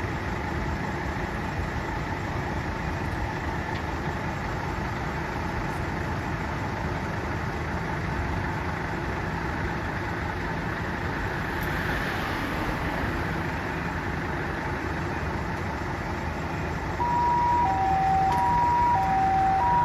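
Steady low rumble of vehicles idling. About three-quarters of the way in, a Japanese ambulance's electronic two-tone 'pee-po' siren starts and grows louder, alternating a higher and a lower tone of about 0.6 s each.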